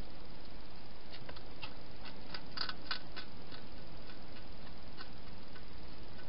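Wild hedgehog feeding at its bowls inside a plastic feeding box: a run of small sharp clicks and crunches, thickest and loudest about two and a half to three seconds in, over a steady hiss.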